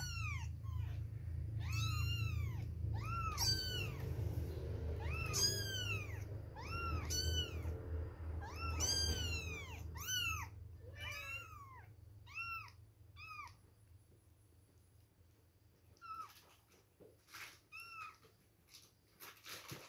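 Two-week-old kittens mewing over and over, thin high calls that rise and fall in pitch, about one a second, thinning out to a few faint mews after about thirteen seconds. A low rumble sits under the calls for the first half.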